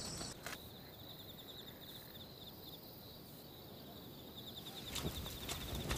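Crickets chirping, a fast, steady high trill. Near the end, sharp clops like hooves begin.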